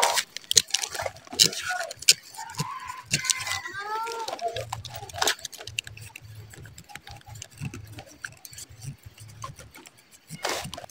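A dull utility-knife blade shaving and scraping the cut wood of a sancang (Premna) stem: irregular scrapes and sharp clicks, the loudest right at the start and again near the end.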